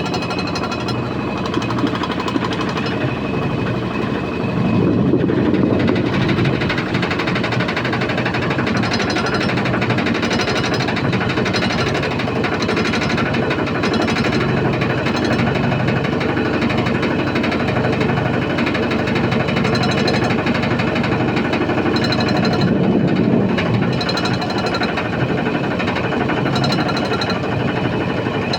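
Washing machine running with a strange, continuous rapid rattling and knocking, the sign of a fault in the machine. The noise swells louder twice.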